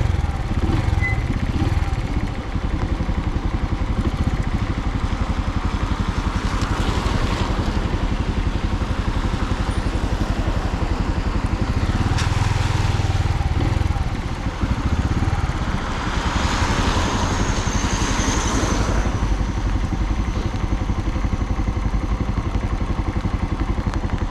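Suzuki TU250X's single-cylinder engine running steadily under way, with wind and road noise from riding in the rain. Three stretches of louder hissing noise come and go, about 6, 12 and 16 seconds in.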